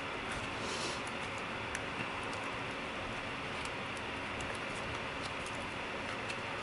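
Faint scattered clicks and light taps of small plastic and metal laptop parts being handled and fitted into place, over a steady background hiss.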